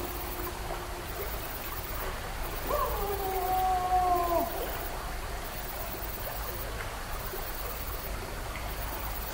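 A single drawn-out animal howl about two seconds long, steady in pitch after a quick rise and sliding down at the end, over a steady background hiss.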